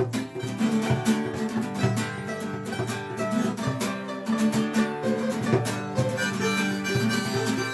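Acoustic guitar strummed in a steady rhythm, an instrumental break in a live punk-folk song.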